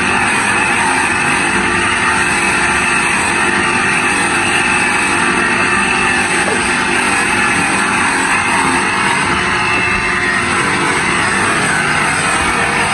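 Bench polishing motor running with a cloth buffing wheel, a plastic car headlight lens pressed against it: a loud, steady running noise of the wheel polishing the plastic.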